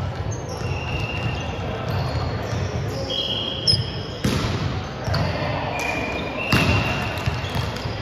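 Indoor volleyball play on a hardwood court: sneakers squeak briefly several times on the floor, and the ball is struck sharply three times in the second half, over a murmur of players' voices.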